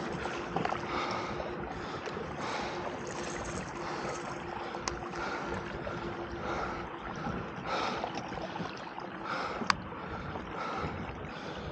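Water lapping against a fishing kayak's hull with wind on the microphone, a faint steady hum in the first half, and two sharp clicks about five and ten seconds in.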